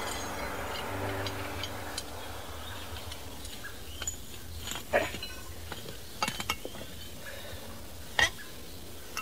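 Scattered metallic clinks and knocks of a lug wrench and tools working on a car wheel during a tyre change, loudest about five seconds in and near the end, over a low steady hum; a rushing noise fades out in the first second.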